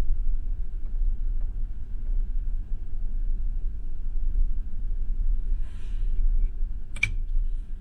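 Low, fluctuating rumble aboard a ferry at sea, with a single sharp click about seven seconds in.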